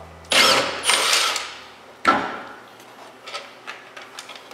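Workshop handling noise: metal scraping and clattering for about a second, then a single sharp knock about two seconds in, followed by a few faint clicks.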